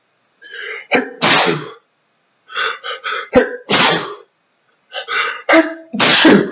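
A man sneezing loudly three times in a row, each sneeze preceded by a catch of breath. This is an allergic sneezing fit set off by the dust from chinchilla dust baths.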